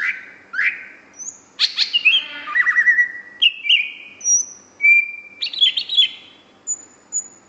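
Greater green leafbird (cucak hijau) singing in full voice: a rapid, varied run of whistled phrases, pitch glides and quick chirping trills, broken by short pauses.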